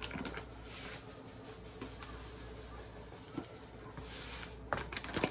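Granulated sugar being poured into a mixing bowl: a brief soft hiss about four seconds in, with a few light taps and clicks around it.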